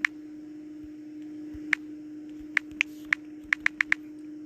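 Phone on-screen keyboard key-press clicks: about nine short taps, spaced irregularly, with a quick run of them near the end, over a steady low hum.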